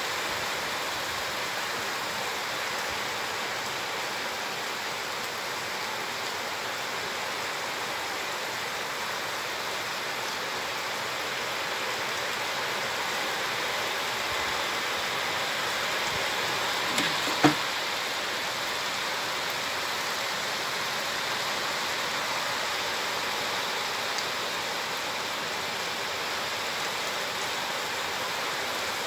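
Heavy rain falling steadily, an even hiss throughout. A short sharp knock sounds once a little past halfway through.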